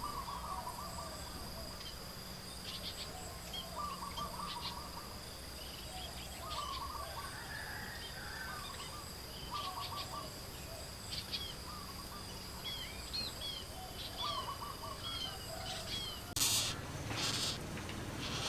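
Birds calling: short chirping trills repeated every second or two, with higher whistled notes, over a steady high insect buzz. A brief burst of noise near the end.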